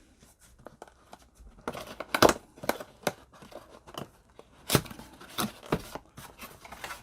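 Cardboard box being opened by hand: irregular tearing and crinkling with scattered sharp clicks, the loudest about two seconds in and near the five-second mark.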